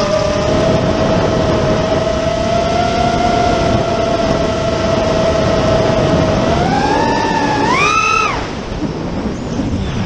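FPV racing quadcopter's LD Power 2305 2750KV brushless motors spinning DalProp Cyclone 5050 props, recorded on board with wind rush. The motors whine at a steady pitch, then climb in two steps as the throttle is punched about two-thirds of the way in, and cut off suddenly just after, leaving mostly wind noise as the throttle is chopped.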